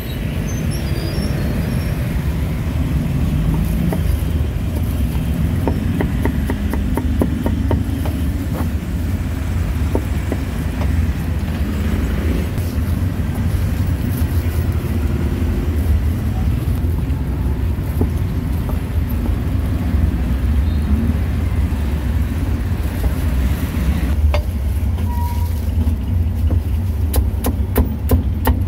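Heavy cleaver chopping roast pork and greens on a thick round wooden chopping block, in quick runs of knocks around a quarter of the way in and again near the end, over a steady low rumble of street traffic.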